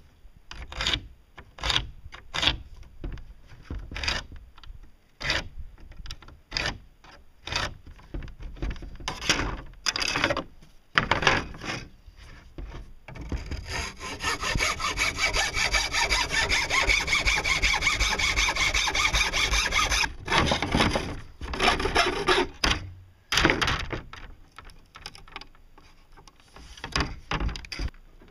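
Hacksaw cutting through a fiberglass sheet: spaced strokes at first, then about six seconds of fast, continuous sawing, then a few more separate strokes.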